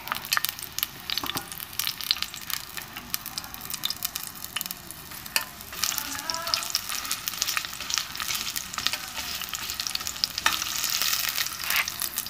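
Sliced onions frying in hot mustard oil in a stainless steel pot: a steady crackling sizzle. A spatula stirs them, scraping and tapping against the pot now and then, from about halfway through.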